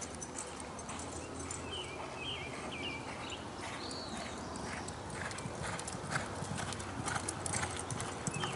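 Hoofbeats of a reining horse loping on a soft dirt arena, the thuds growing louder and more distinct in the second half as the horse speeds up.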